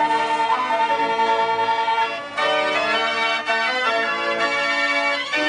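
Organ music playing held chords that change every second or so, with a short break about two and a half seconds in.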